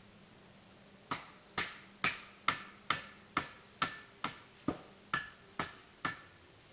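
A hammer striking metal in a steady series of twelve blows, about two a second, each blow ringing briefly.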